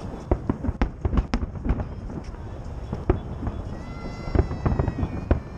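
Fireworks salute bursting overhead: a rapid, irregular string of sharp bangs and crackles, with voices from the crowd of onlookers.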